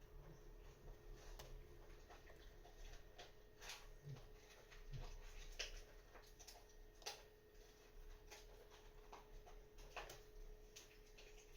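Faint, irregular clicks and ticks of a disc detainer pick working and rotating the discs inside a disc detainer lock.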